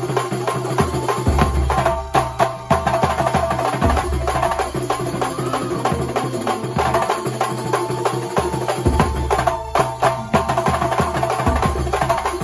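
Kuntulan, Banyuwangi folk music: fast, dense frame-drum and drum percussion over a repeating melody, with deep bass coming in and out in stretches.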